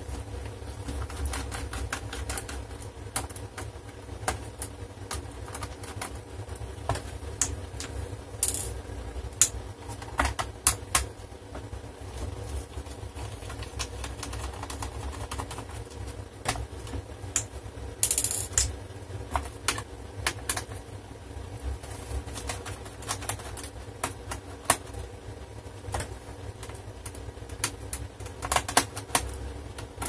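Scattered small clicks and taps of a screwdriver working screws out of a laptop's plastic case, with screws being set down, over a steady low hum. A few brief clusters of sharper clicks come about a third of the way in, around the middle and near the end.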